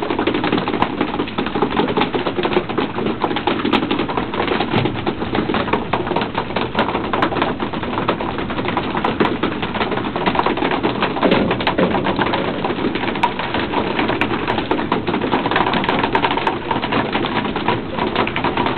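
Dense, irregular tapping and splashing as albacore tuna thrash at the surface and are swung aboard on cane poles, over a steady wash of sea and boat noise.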